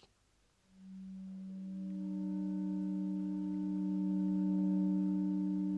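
Background music: a held drone of several steady, pure-sounding tones that enter one after another from low to high after a brief silence and swell slowly.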